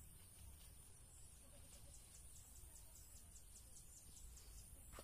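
Near silence: faint outdoor ambience, with a run of faint high chirps at about four a second through the middle.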